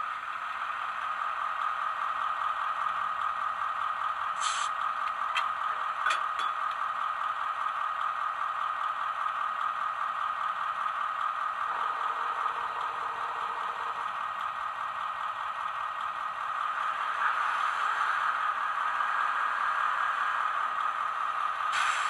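Diesel engine sound of a Siemens ER20 Eurorunner, played by a LokSound 4.0 decoder through a model locomotive's small speaker: a steady running drone. A short hiss and a few clicks come about four to six seconds in, the drone grows a little louder about seventeen seconds in, and another short hiss comes near the end.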